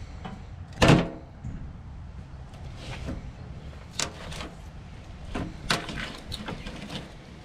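A loud knock about a second in, then a few scattered lighter clicks and knocks over a low rumble, like something being handled or a door or lid being moved.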